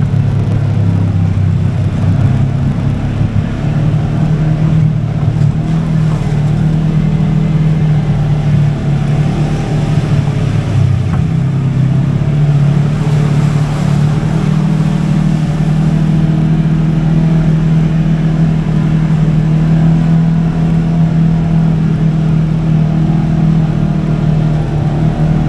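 Kawasaki KRX side-by-side's parallel-twin engine running steadily at fairly even revs, with small rises and falls in pitch.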